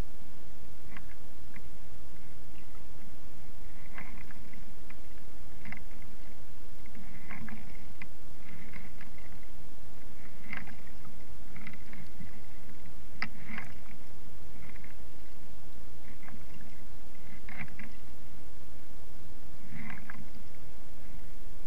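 Kayak paddle strokes: water splashing and dripping off the blades every second or two, over a steady low rumble.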